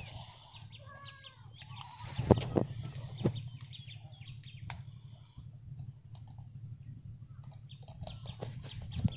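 Bare feet squelching and stepping in wet tidal mud, with scattered knocks and clicks, over a steady low drone. Short bird calls sound in the background, a few around a second in and again near the end.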